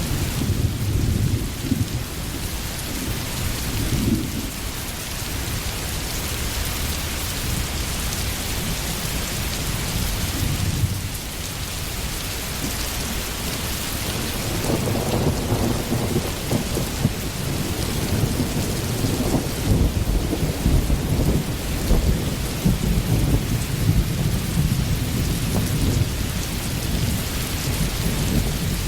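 Steady heavy rain with low rolling thunder rumbling underneath, swelling in the second half.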